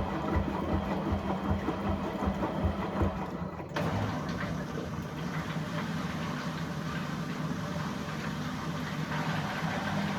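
Washing machine running a quick cleaning cycle with a dishwasher tablet: a steady motor hum with churning, which changes abruptly a little under four seconds in and then runs on.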